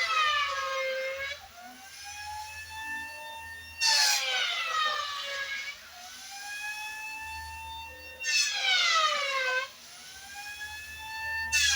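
Handheld electric planer cutting mahogany in repeated passes. Its motor whine drops in pitch under load as each loud cut begins, then climbs back to full speed between passes, about every four seconds.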